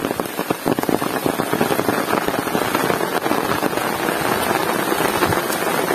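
Heavy rain pouring down steadily, countless drops pattering on hard surfaces.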